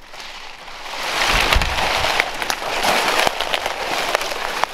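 Palmetto fronds and dry brush rustling and crackling as they are pushed through on foot, growing loud about a second in, with a few dull thumps.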